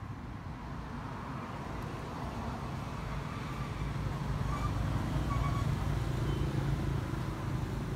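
Low rumble of a motor vehicle, engine and road noise, growing steadily louder as it approaches.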